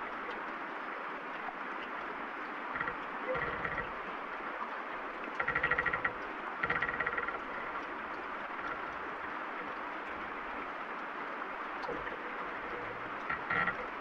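Steady rain falling, with a few creaks of wooden tree branches, the loudest about five and a half seconds in and another just after.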